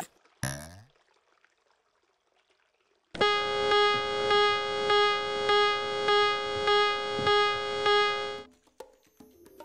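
Cartoon soundtrack: a brief sound sliding down in pitch, then a pause, then a long held buzzy musical note that swells and fades about every 0.7 s for some five seconds before cutting off abruptly.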